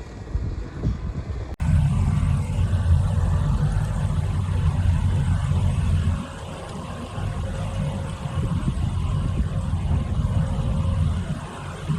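Heavy diesel farm machinery running steadily under load, a deep engine rumble. It comes in abruptly about a second and a half in, after a quieter, wind-buffeted low rumble.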